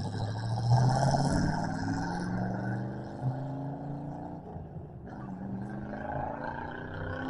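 C3 Chevrolet Corvette's V8 accelerating away, its pitch rising through two or three gear changes as it fades into the distance.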